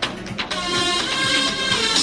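Galaxy S22 ringtone playing from the phone's speaker: quick rhythmic plucked or tapped notes, then about half a second in a bright, sustained high chord with a fast shimmer comes in and the music gets a little louder.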